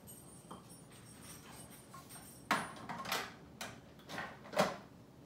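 Food processor with a plastic bowl and lid, giving about five short, sharp noisy bursts roughly half a second apart, from about two and a half seconds in.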